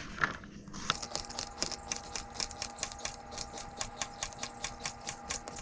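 Kitchen knife slicing zucchini thinly on a cutting board: rapid, even chopping strokes, about six a second, starting about a second in.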